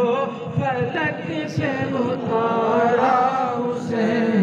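Man's voice chanting a manqabat, a devotional poem in praise of Imam Hussain, into a microphone, in long wavering held notes.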